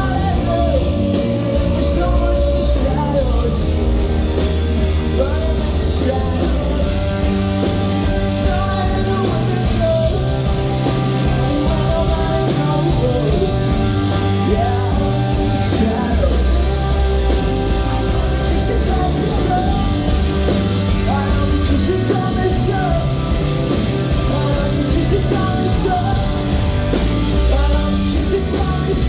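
Live rock band playing loudly, with electric guitars, bass and drums, through a long passage without sung lyrics.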